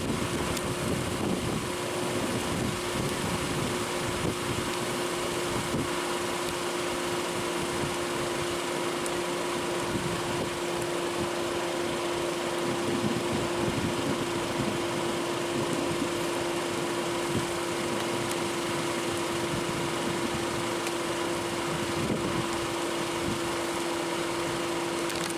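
Steady mechanical hum over a rushing hiss, from a running vehicle.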